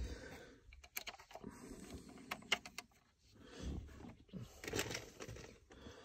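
Faint, scattered small clicks and scrapes of plastic on plastic as a new four-wheel-drive selector switch is pressed and worked by hand into its plastic housing.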